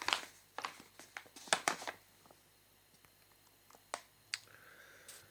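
A plastic washing-powder pack being handled and turned over, giving scattered crinkles and clicks that are thicker in the first two seconds, with two more about four seconds in.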